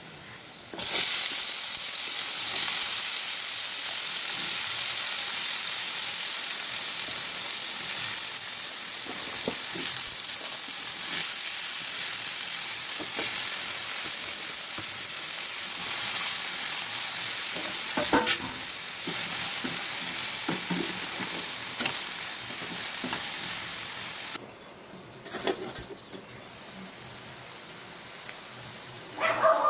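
Food frying in hot oil in a pan, a loud steady sizzle that starts suddenly about a second in and stops near the end, with occasional clinks of a spoon against the pan as it is stirred.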